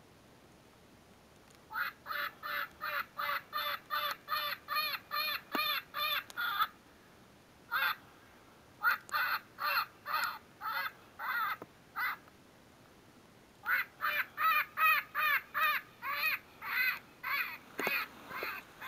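Lucky Duck Revolt electronic predator call playing a prey distress sound: runs of harsh, arching cries at about three a second, starting a couple of seconds in and broken by two short pauses.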